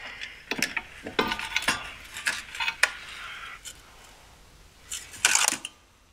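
Metal clinks and knocks as a Skoda Felicia's clutch pressure plate is lifted off the flywheel and the clutch disc pulled away by hand: a run of clinks in the first three seconds, then a short scraping rustle about five seconds in.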